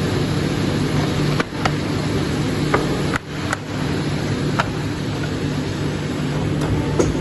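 Polar 115 EMC guillotine paper cutter running with its air table blowing: a steady mechanical hum with a fixed low tone. A handful of sharp clicks and knocks sound as a paper stack is slid and squared on the table.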